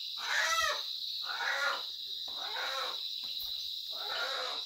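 Crickets chirring steadily in the night, with an animal giving a run of short calls that rise and fall in pitch, about one every three quarters of a second.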